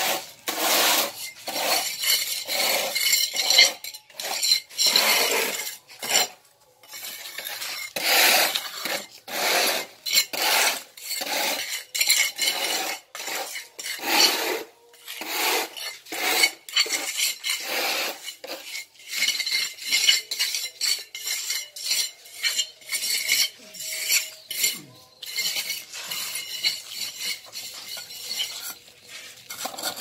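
Bricklayer's trowel scraping and clinking against wet mortar and brick in quick, irregular strokes, a few each second.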